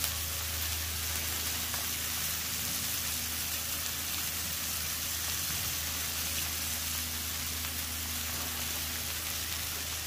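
Ground-beef burger patties sizzling steadily on a flat top griddle, with a low steady hum underneath.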